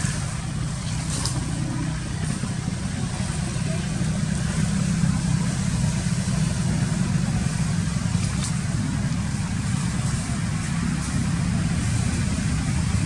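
Steady low rumble of a motor running continuously, with a couple of faint clicks.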